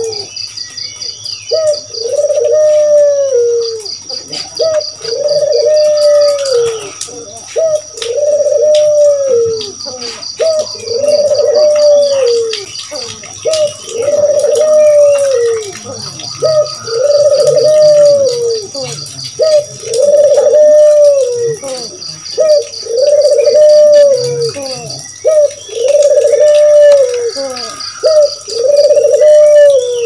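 Barbary doves (white puter doves) cooing: a steady series of long coos, about one every two seconds, each rising and then falling in pitch. Short bursts of fast, high ticking and faint chirps sound behind them.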